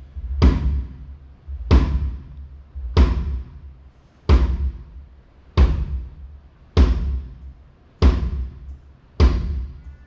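Kick drum struck alone, one hit at a time, for a sound check. There are eight even, heavy thumps about one every second and a quarter, each trailing off briefly.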